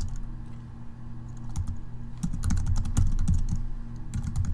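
Typing on a computer keyboard: a run of key clicks, sparse at first and quickening after about a second and a half, over a low steady hum.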